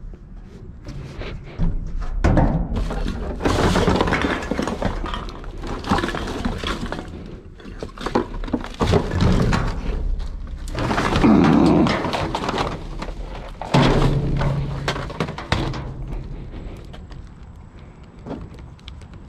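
Rummaging through a dumpster: a run of clattering, knocks and scraping as discarded items are shifted and pulled out. It dies down near the end.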